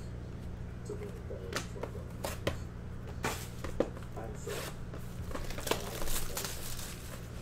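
Hands handling trading-card packaging: a few sharp clicks and taps, then from about three seconds in the plastic wrap of a sealed card box crinkling and rustling. A steady low hum runs underneath.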